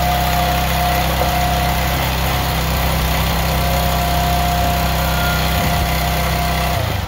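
NorthStar 37-ton log splitter's small gas engine running steadily while the control lever works the splitting ram, with a steady high whine over the engine. The sound changes just before the end.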